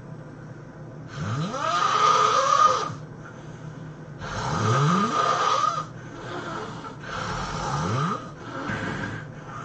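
A person snoring heavily in sleep: three loud snores about three seconds apart, each rising in pitch, with quieter breathing between them and a weaker snore near the end.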